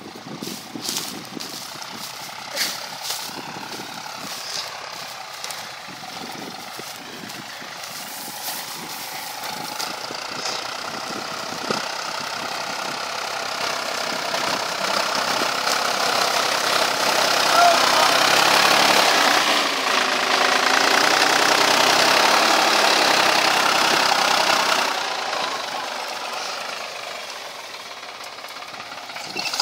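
Diesel farm tractor pulling a plough through stubble, its engine growing louder as it comes close, loudest in the middle and dropping away a few seconds before the end. Sharp clicks and crackles in the first half.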